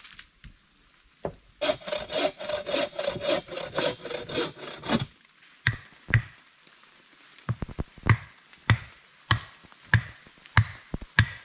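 Hand saw cutting wood with quick strokes, about four a second, for a few seconds. Then a steady run of sharp chopping blows on wood, roughly one every half second or so.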